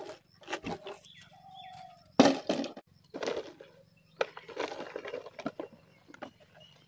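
Dry fallen leaves crunching and rustling in several irregular bursts, the sharpest about two seconds in.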